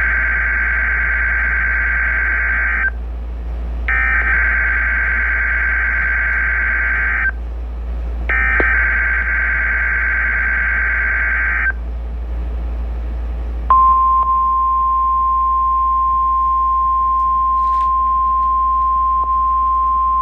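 NOAA Weather Radio Emergency Alert System test signal: three bursts of SAME digital header tones, each about three seconds long with about a second between them, then after a short pause a steady 1050 Hz warning alarm tone that starts about 14 seconds in and holds.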